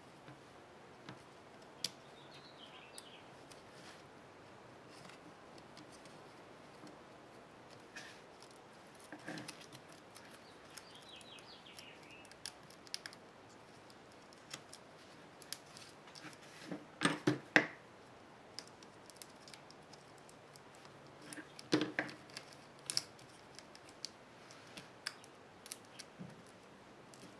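Small clicks, taps and scratches of hands working on a laptop's motherboard and its cable connectors, with a run of louder clicks about 17 seconds in and again about 22 seconds in, and a few faint scratchy squeaks.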